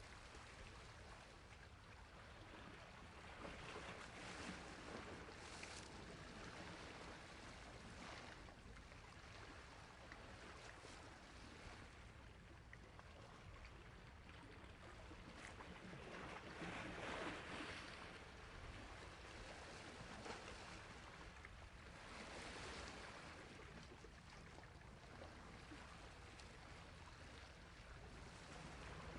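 Faint sea waves washing onto a shore, the hiss of surf swelling and ebbing every few seconds.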